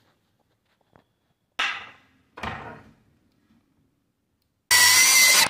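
Two sharp knocks about a second apart, then near the end a circular saw cutting into the clamped stack of faux wood blind slats: a loud dense sound with a steady high whine that cuts off abruptly.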